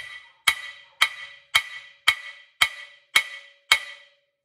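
Steel hammer striking a Dana 60 steering knuckle eight times at a steady two blows a second, each blow ringing briefly, to shock the ball joint tapers loose from the knuckle.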